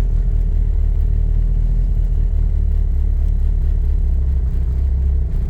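Engine of a 1990 Eagle Talon hot rod running steadily, a loud, deep low drone.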